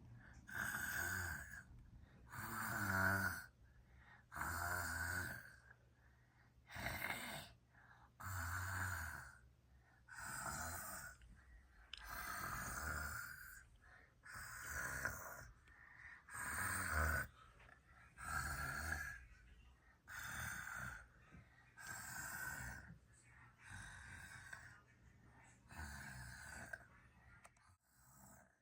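A person snoring in a steady rhythm, about one snore every two seconds, some snores with a low rattle, growing fainter near the end.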